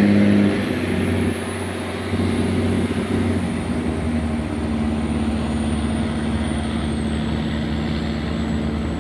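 Boat diesel engines running with a steady low drone, a little louder for the first half-second.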